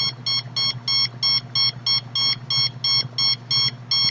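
Handheld RF meter's alarm beeping rapidly and evenly, about three short, shrill beeps a second, over a steady low electrical hum; such a meter beeps like this when it is reading high signal levels.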